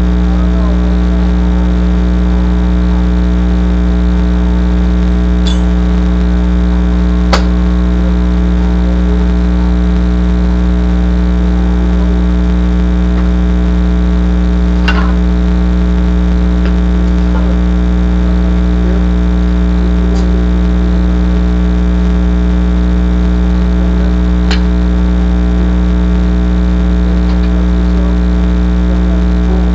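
Loud, steady electrical hum made of many even tones, from the recording equipment, with a handful of scattered sharp knocks.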